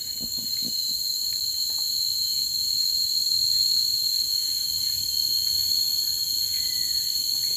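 Steady, high-pitched chorus of tropical forest insects: a constant shrill buzz that holds one pitch without a break.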